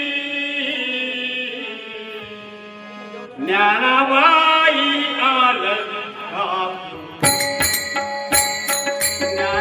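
A singer holds long, melismatic lines of a Marathi devotional abhang in bhajan style, over a steady accompanying drone. About seven seconds in, rhythmic percussion joins: sharp, ringing hand-cymbal strikes with a drum underneath.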